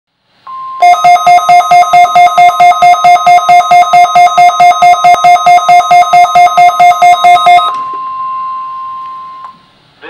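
Midland weather alert radios going off for a required weekly test: loud electronic beeping, about four beeps a second, over the steady single-pitched NOAA Weather Radio warning alarm tone. The beeping stops about three-quarters of the way through, and the steady alarm tone carries on a little longer before cutting off.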